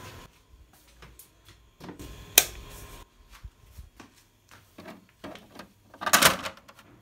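Household handling noises: scattered clicks and knocks, one sharp knock about two and a half seconds in, then a louder half-second plastic clatter about six seconds in as a hand works the top of an all-in-one printer.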